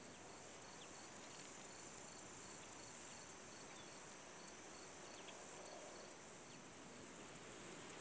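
Steady high-pitched chorus of insects in a grassy bog, with a faint repeated pulse about twice a second.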